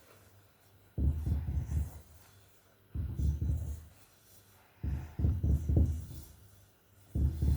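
Fingers rubbing butter into flour in a mixing bowl, in four bursts of rubbing about a second long, roughly two seconds apart.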